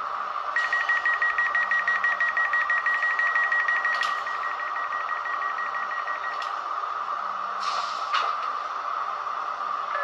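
Sound decoder in an H0 ÖBB 4020 S-Bahn model playing the stationary train: a steady hum under a rapid high beeping, as of the door warning signal, that lasts about six seconds. Two clicks follow, then a short burst of air hiss about eight seconds in.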